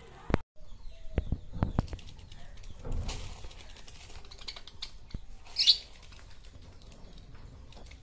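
Budgerigars in a cage: wings fluttering, several sharp taps and knocks during the first few seconds, and short high chirps around the middle, the loudest one a little before six seconds in.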